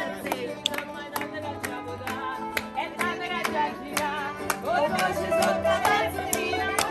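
Live mandolin and acoustic guitar playing a lively tune, with women's voices singing along and hand claps keeping the beat.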